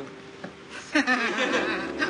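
Talk-show conversation: a brief lull, then voices pick up again about a second in, with a little laughter.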